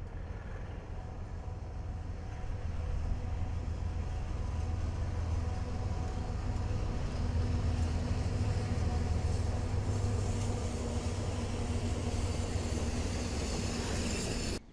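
Diesel freight train passing: the locomotives' engines run with a steady low drone, and the rolling noise of the cars on the rails swells in the last few seconds.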